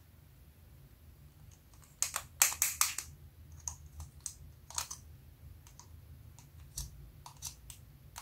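Thin tool scraping and clicking inside a metal lipstick tube as the lipstick is dug out: a cluster of sharp clicks and scrapes about two seconds in, another near five seconds, and scattered light ticks between.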